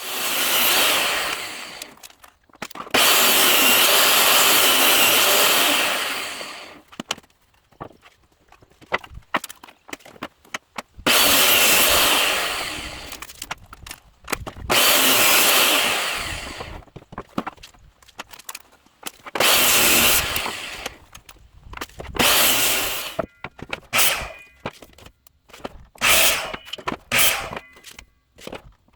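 Power saw cutting wooden boards: several separate cuts of two to four seconds each, then shorter cuts in quick succession near the end.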